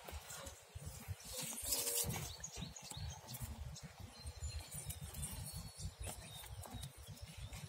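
Banana leaf crinkling and rustling as hands fold it around a chicken and tie the parcel with fibre strips, with wind rumbling on the microphone.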